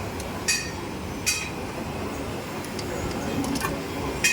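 Sharp metallic clinks that ring briefly, about one every 0.8 seconds with a pause in the middle, over the steady low rumble of running workshop machinery.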